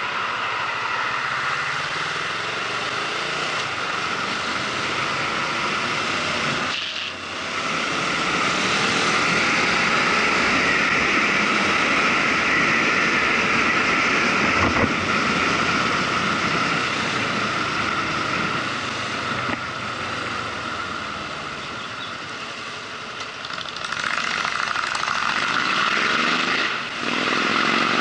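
Motorcycle engine running while riding through traffic, its note rising and falling with the throttle and getting louder about eight seconds in. There are two brief drops, about seven seconds in and near the end.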